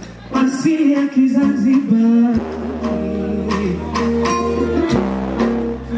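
Amplified Afrobeat/bongo flava song with a male voice singing over bass and a steady beat, played through a stage sound system.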